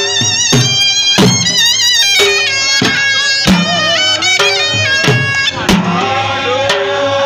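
Balochi lewa music: a surna, a double-reed pipe, plays a reedy, ornamented melody with bends and trills over two double-headed dhol drums beating a steady dance rhythm, about one and a half heavy strokes a second.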